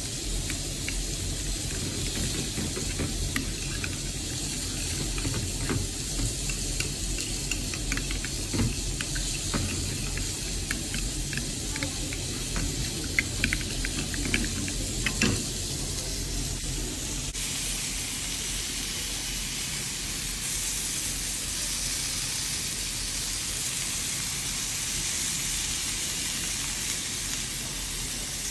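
A spoon stirring thick sauce in a ceramic bowl, with light clinks and scrapes against the bowl that grow sharper about halfway through. About seventeen seconds in, this gives way to the steady hiss of beef patties sizzling on a ridged grill pan.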